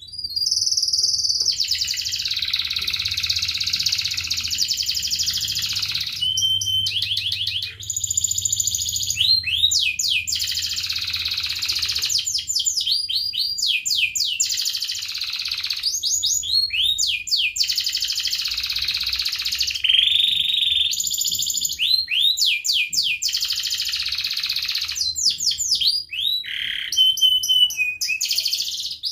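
Domestic canary singing a long, nearly unbroken song of rapid trills and rising whistled sweeps, with only brief pauses.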